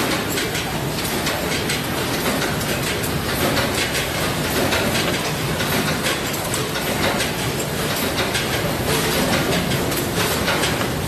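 Steady clattering din of poultry processing line machinery and conveyor belts running, with scattered knife taps on plastic cutting boards.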